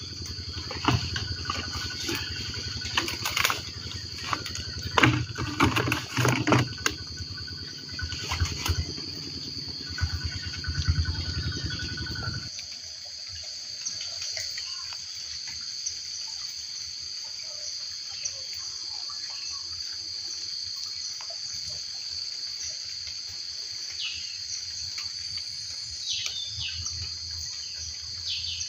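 Insects droning steadily on one high note, with irregular knocks and rustling from someone handling branches at the water's edge for the first twelve seconds or so. Near the end a few short bird chirps come through.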